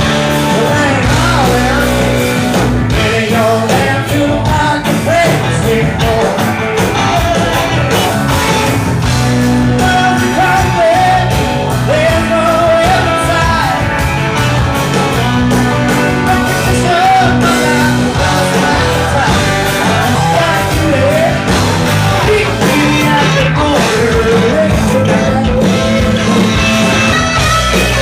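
Live rock band playing: electric guitar, bass and drums, with singing.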